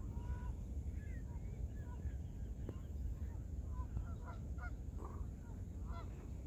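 Waterfowl calling in many short honking calls, scattered through the whole stretch, over a steady low rumble.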